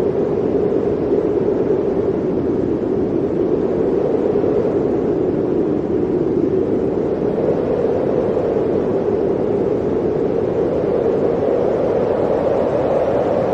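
Blizzard wind blowing steadily: an even rushing noise centred on a low, hollow tone that sinks a little midway and rises again near the end.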